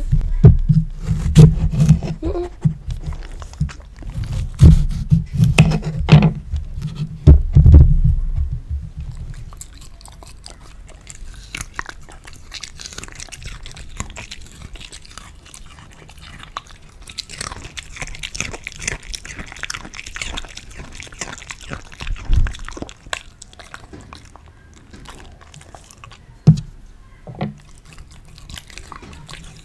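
A knife slicing through a fresh cucumber onto a wooden cutting board, picked up close: crisp crunching cuts and heavy thumps for about the first nine seconds. After that it goes much quieter, with a few soft clicks and one sharp click shortly before the end.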